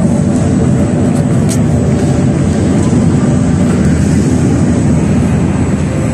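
An exhibit's sound system playing a loud, steady low rumbling drone, with a faint steady high whine above it.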